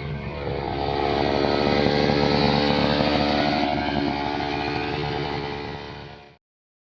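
Small two-stroke brush cutter engine running at high revs, steady with slight swells in pitch and level. It fades and cuts off to silence near the end.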